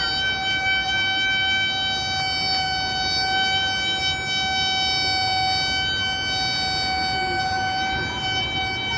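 A continuous high whine held at one unchanging pitch, with a low rumble of background noise beneath it.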